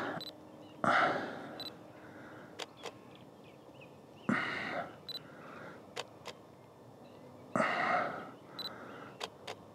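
A DSLR camera taking three slow-shutter exposures, each a pair of shutter clicks about a fifth of a second apart as the shutter opens and closes for a 1/5 s exposure, each pair about a second after a short high focus-confirmation beep. Three louder short rushes of noise come between them.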